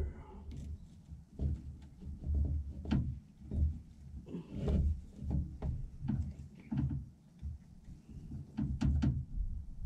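A starter motor being worked loose from a Daihatsu Hijet's transmission by hand: irregular metal clunks, knocks and scrapes, a few a second and uneven.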